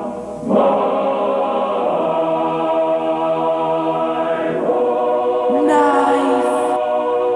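Choral music: a choir singing long, held chords, with a short break right at the start.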